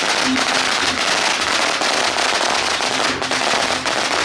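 A string of firecrackers going off in a continuous, rapid, dense crackle.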